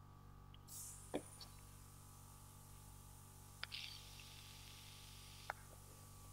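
Near silence with a steady low electrical hum, broken by about three short computer mouse clicks spread across a few seconds.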